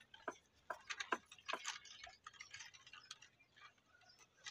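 Faint, irregular small ticks and clicks, a few a second, from hands breaking up a dry rice roti on a plate.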